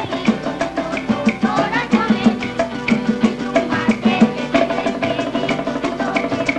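Lively Latin-style instrumental band music: maracas shaking over a quick, steady percussion beat, with a wavering melody line on top.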